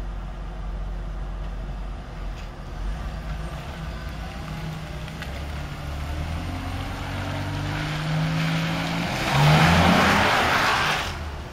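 BMW E39 528i Touring's straight-six engine running, its revs climbing over several seconds. Near the end there is a louder rush of noise as it pulls hard, and then the rush dies away.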